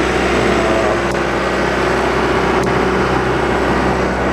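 John Deere 310G backhoe's diesel engine running steadily at high idle to warm up, with two faint clicks partway through.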